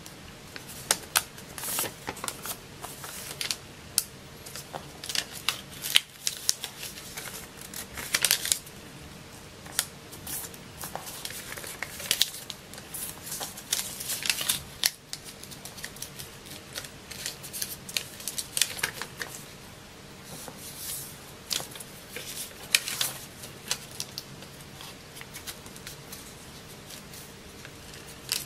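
A sheet of paper being folded and creased by hand: irregular crisp rustles and sharp crackles as it is turned, flattened and pressed into creases, thinning out near the end.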